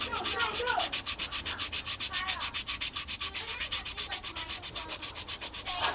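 Sandpaper rubbed by hand over brown mallee hardwood knife handle scales in quick, even back-and-forth strokes, about eight a second, shaping the grip.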